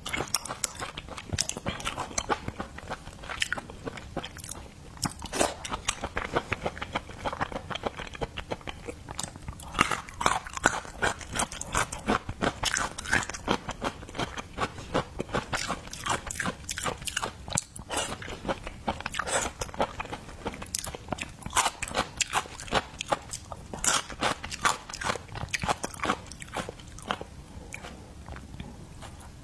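Close-miked eating: a person biting, crunching and chewing seafood, with many sharp crackles and clicks coming thick and fast throughout.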